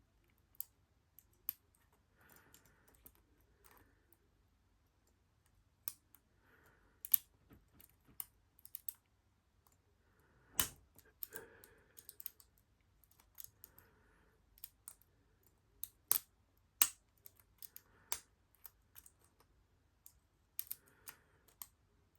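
Lock pick and tension wrench working the pin stack of a Squire LN4 padlock: irregular sharp metallic clicks as pins are lifted and set, one much louder about ten and a half seconds in.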